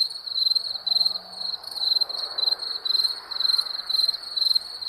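Wild crickets chirping in a steady, rapid train of short, high-pitched pulses that repeat evenly.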